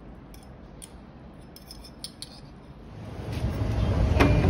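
A few light clinks of a metal fork and spoon against a ceramic plate as spaghetti is twirled. About three seconds in, wind buffeting the microphone comes in loud and low, with a single sharp click shortly before the end.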